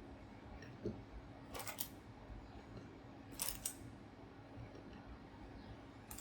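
A few small handling clicks over a faint steady hum: a soft knock about a second in, then two brief clusters of sharp clicks.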